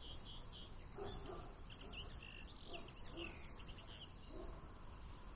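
Common linnets twittering: a string of short, quick chirps and slurred notes, faint, over a low steady background hiss.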